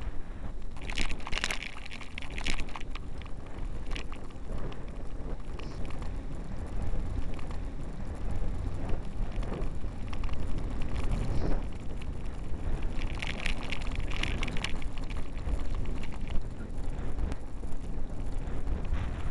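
Wind buffeting the microphone of an 808 keychain camera mounted on a moving vehicle, a steady low rumble. Two short spells of brighter, crackly noise come through, about a second in and again about thirteen seconds in.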